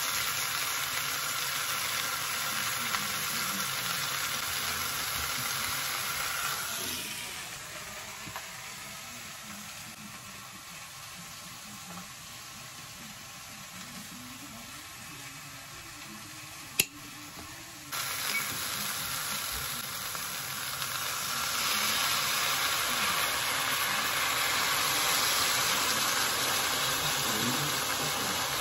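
Mackerel fillets and eggplant wedges sizzling steadily in a frying pan. The sizzling drops away for about ten seconds in the middle, broken by one sharp click, then comes back and grows louder.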